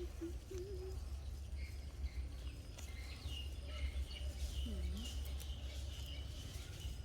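Outdoor ambience with a steady low rumble and high, short chirps of small birds through the middle and later part. About five seconds in there is one short call that dips in pitch and rises again.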